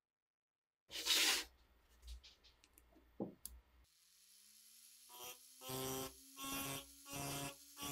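A short scrape as the steel blade is set on the wooden bench, then a pen-style rotary tool spins up with a slightly rising whine. Its small ball burr grinds into the steel in four short strokes.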